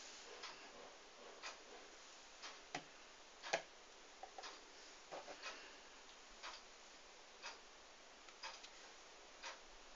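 Faint regular ticking about once a second, with a sharper knock about three and a half seconds in as a pint glass of Guinness is set down on a Guinness Surger base.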